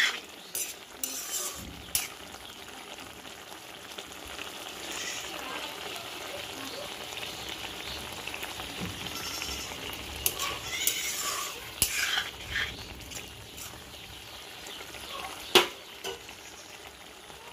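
Leafy greens and prawns sizzling steadily in a steel kadai, with a metal spatula stirring and clinking against the pan a few times.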